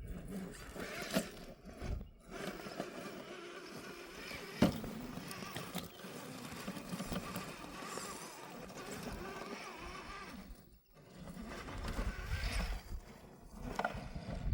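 Axial SCX10 III SR5 RC crawler's electric motor and gear drivetrain whining, rising and falling in pitch as it crawls over rocks, with a sharp knock about a third of the way in as the truck hits the stones.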